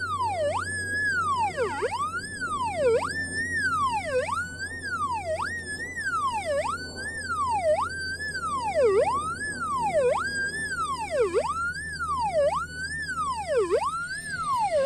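Geosensis X3 pulse metal detector's audio signal: a steady electronic tone that swoops down sharply in pitch and back up about once every 1.2 seconds, a dozen times over. It follows the quick sweeps of the coil across a large buried non-ferrous target, a copper flask, which lights the red LED.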